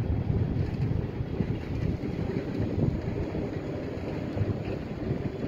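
Wind buffeting the microphone: a heavy, low rumble that rises and falls unevenly.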